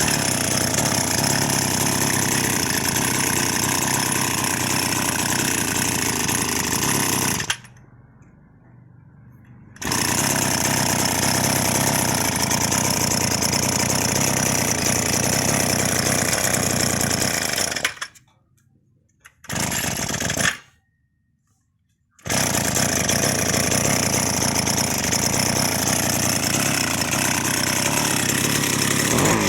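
Echo SRM-281 two-stroke brush cutter engine running steadily. The sound breaks off abruptly three times, for about two seconds each.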